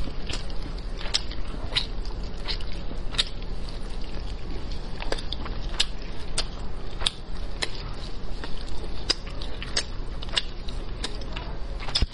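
Braised pork elbow in chilli sauce being torn apart and pulled off the bone with plastic-gloved hands: irregular sharp clicks several times a second, over a low steady hum.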